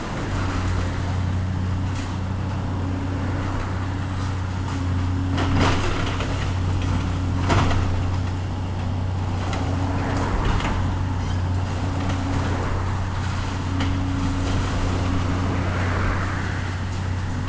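Heavy demolition machine's engine running steadily, with a few sharp knocks and crunches of demolition work about a third of the way in, near the middle and a little after.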